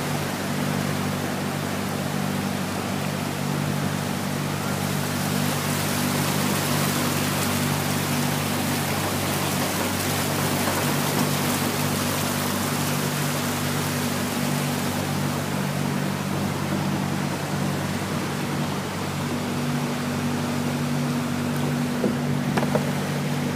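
A motorboat's engine running steadily at a constant pitch as the boat pushes through floodwater, with a continuous rush and splash of water from its wake that swells for a while in the middle.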